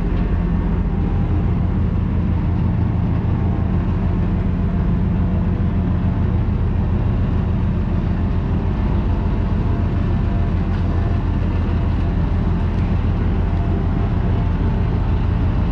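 River tour boat's engine running with a steady low throbbing rumble as the boat manoeuvres sideways in to the pier.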